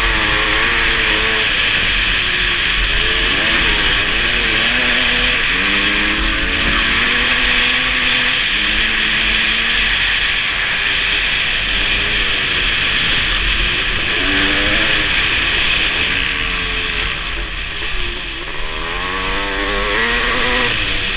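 Kawasaki KX500's single-cylinder two-stroke engine revving hard, its pitch climbing and falling again and again as the throttle is opened and eased, with wind rushing over the microphone. Near the end it eases off briefly, then revs back up.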